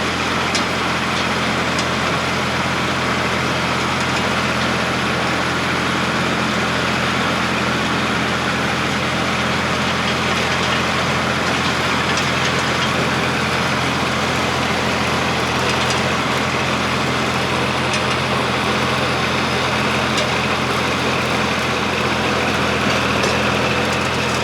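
Tractor diesel engine running steadily at constant speed, driving a Siromer P10 small round baler, with a few faint clicks from the machinery.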